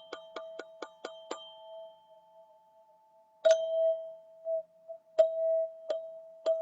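A Golden ZenTube rung on one bell-like pitch. A fast run of about five light strikes a second dies away in its ringing. About three and a half seconds in, a louder strike comes, followed by three more spaced single strikes.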